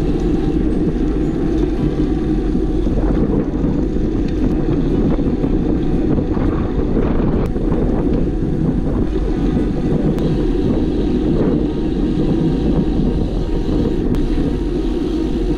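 Wind buffeting the microphone of a handlebar-mounted camera on a moving road bike: a steady, heavy rushing rumble.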